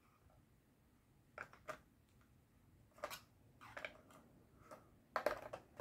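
Small plastic ink pads knocking and clicking against a clear plastic storage box as they are handled and lifted out: a handful of light plastic-on-plastic clicks, the loudest cluster near the end.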